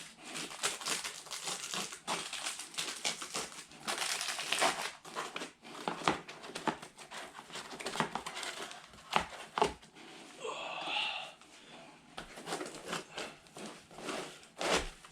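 Packaging crinkling and rustling in irregular bursts, with a few light knocks, as items are handled and packed back into their box.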